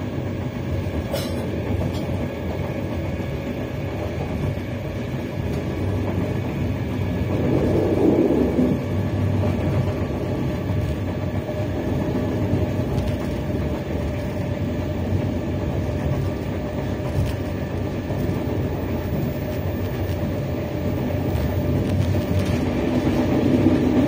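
Ride inside a moving passenger train: the steady rumble of the train running along the track, swelling louder about eight seconds in and again near the end.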